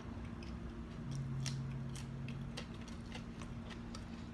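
Close-up chewing of homemade french fries: irregular small clicks from the mouth, over a steady low hum.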